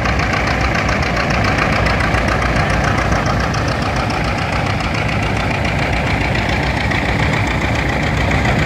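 Vintage farm engine running steadily under load with a rapid, even beat, driving a threshing machine through a long flat belt.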